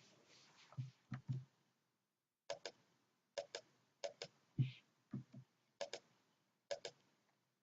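Computer mouse clicking: six pairs of sharp clicks, press and release, spaced roughly a second apart, with a few soft low thuds about a second in and again midway.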